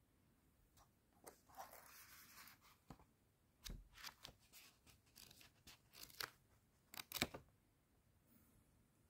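Pages of a thick paperback dictionary being leafed through: a string of faint paper rustles and sharp page flicks from about a second in until near the end, loudest about seven seconds in.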